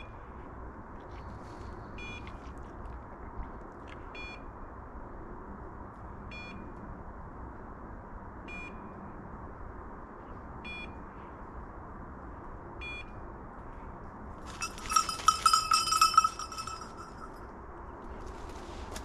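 Hunting dog's beeper collar giving short high beeps about every two seconds, the sign that the dog has stopped, typically on point. About fifteen seconds in, a louder ringing sounds for about two seconds.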